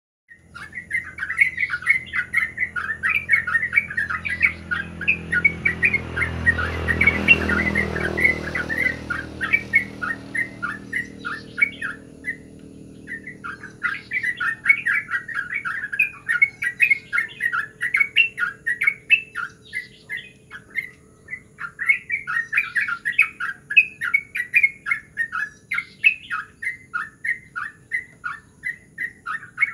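A yellow-vented bulbul singing its rolling song: long runs of rapid notes, with brief pauses about twelve and twenty seconds in. A low droning hum swells and fades over the first ten seconds.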